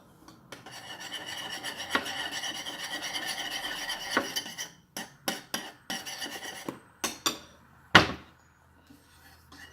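A small spoon scraping and stirring against a bowl while mixing slime glue, continuous for about four seconds, then a few scattered clicks and one sharp knock about eight seconds in.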